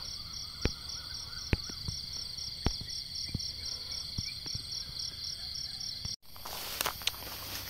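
Crickets chirping in a steady, rapidly pulsing high trill, with a few sharp ticks scattered through. About six seconds in the sound drops out for a moment and gives way to a louder hiss.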